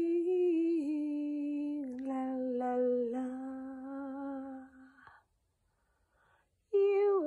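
A woman humming a slow, wordless melody with no accompaniment, holding long notes that step gently down in pitch. It breaks off about five seconds in, and a short note begins again near the end.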